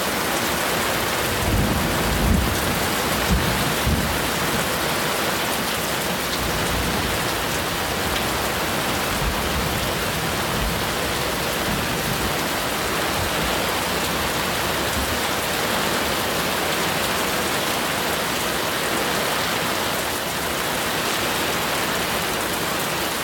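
Heavy rain pouring steadily in a thunderstorm, a dense even hiss. A few low rumbles rise under it about two to four seconds in.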